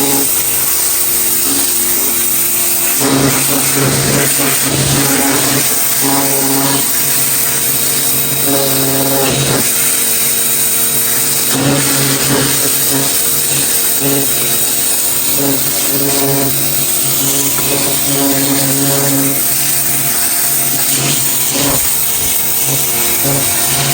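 Pressure washer running steadily, its jet hissing as it sprays the weathered deck boards, over the drone of the machine's motor.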